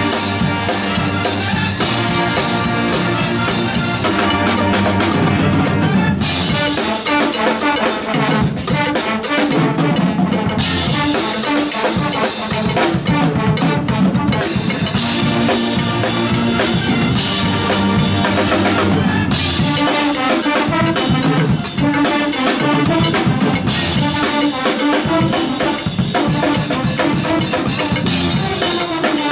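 A marching-style pep band playing a loud, driving tune. Saxophones, clarinets, flutes and sousaphones play over marimbas and a percussion section of bass drums and crash cymbals, with the cymbals coming in and out every few seconds.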